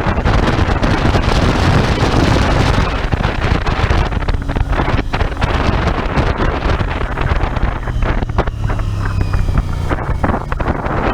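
Royal Enfield Interceptor 650's parallel-twin engine running as the motorcycle rides along, heavily mixed with wind rushing over the microphone. The wind is strongest in the first few seconds and eases a little in the last third, where the engine note comes through steadier.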